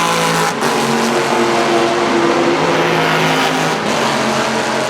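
V8 touring race car engines running hard under load, with brief dips in the sound about half a second in and again near the end.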